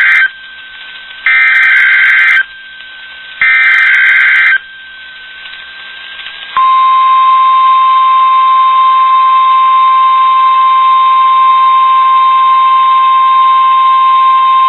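NOAA Weather Radio weekly test signal received over a radio. Three buzzy SAME digital header bursts, each about a second long, come about a second apart, the first already under way. Then, about six and a half seconds in, the steady single-pitch 1050 Hz Warning Alarm Tone starts and holds.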